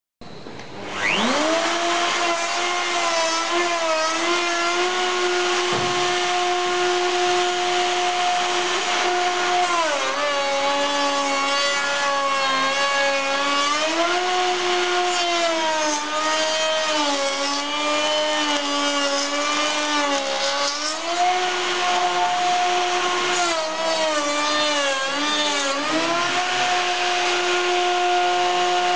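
Hand-held electric router spinning up to speed, then milling a groove into a wooden beam. Its steady high whine sags in pitch several times as the bit bites into the wood under load, and recovers in between.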